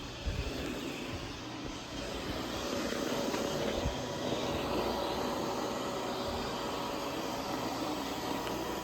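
Roomba robot vacuum running, a steady whirring drone from its motor and brushes that gets slightly louder about two seconds in.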